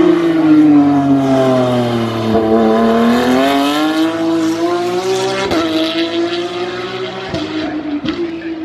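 Race car engine running hard, its pitch falling for a couple of seconds, then climbing back and holding steady, as the car slows and then accelerates again. A sharp click or pop about five and a half seconds in.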